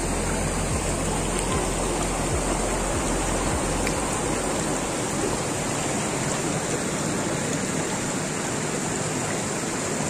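Steady rush of a shallow mountain river running over and between boulders.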